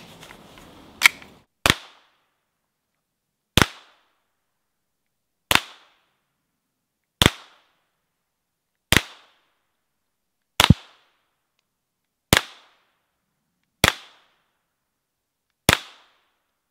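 Calibre Innovations CIP22, a Glock-pattern long-barrelled .22LR rimfire pistol, fired about ten single shots at a slow, even pace, roughly one every two seconds. Each shot is a short, sharp crack.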